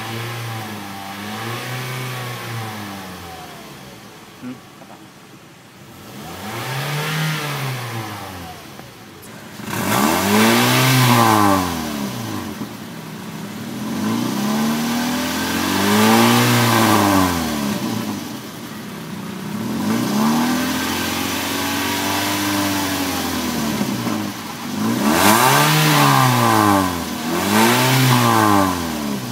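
2008 Toyota Yaris's 1.5-litre four-cylinder engine, with variable valve timing, being revved from idle again and again. There are about seven or eight rises and falls in pitch, with one rev held for a few seconds past the middle and two quick blips close together near the end. For most of it the engine is heard at the exhaust tailpipe.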